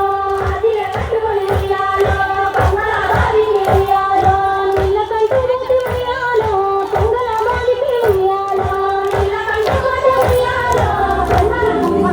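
Women's voices singing a Bathukamma folk song together in a high, steady melody over a regular beat of about three strokes a second.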